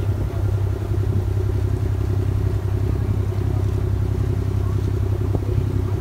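A boat's engine running steadily, heard on board as an even low hum.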